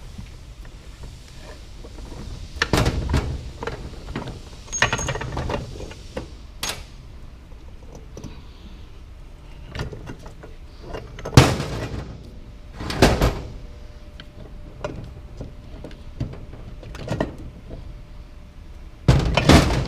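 Transmission parts being handled and shifted by hand: a series of separate knocks and short clattering clunks, the loudest about halfway through.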